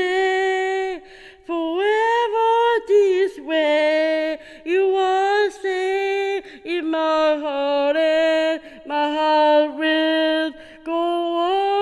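A single female voice singing a cappella with no accompaniment: a run of long held and gliding notes, broken by short breaths between phrases.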